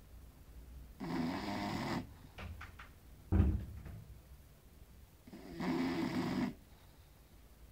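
Small dog snoring: two rasping snores about four seconds apart, each lasting about a second. Between them there is a short, loud low thump with a few clicks.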